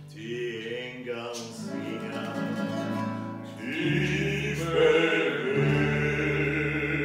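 Three male voices singing a Wienerlied in harmony over strummed classical guitar and tenor ukulele with a bass ukulele underneath. About halfway through the music gets louder and the voices hold a long chord to the end.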